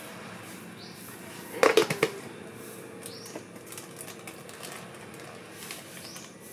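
Kitchen utensils clattering: a quick run of sharp knocks about two seconds in, leaving a short ringing tone, over a steady low hiss.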